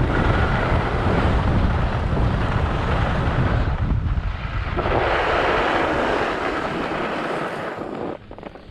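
Wind buffeting the microphone: a loud, rumbling rush with no steady tone, which drops away suddenly near the end.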